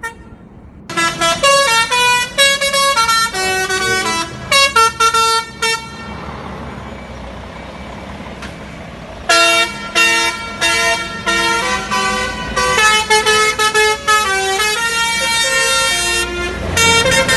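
A lorry's multi-tone telolet (basuri) air horn playing a tune in short stepped notes, in two long runs with a pause of about three seconds in the middle where only a steady noise remains.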